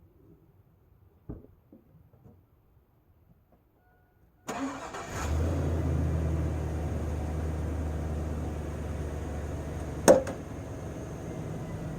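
2001 Chevy 1500's 4.8-litre V8 cranked by the starter, catching after a brief crank about four and a half seconds in and settling into a steady idle. A thump about a second in and a sharp click near the end.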